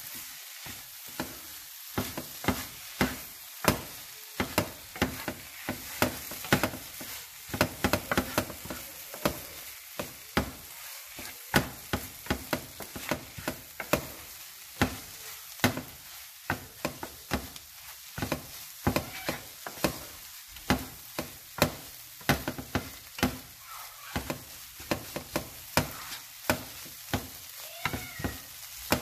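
Spiced clam meat sizzling in a nonstick frying pan as it dry-fries, with a wooden spatula stirring it and knocking and scraping against the pan a few times a second.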